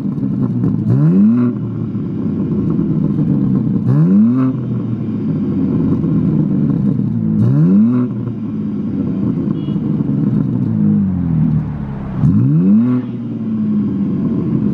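BMW M4's S58 twin-turbo straight-six being free-revved while parked, with the exhaust valves held open in Sport Plus: four quick blips, each rising sharply in pitch and falling back to idle, a few seconds apart.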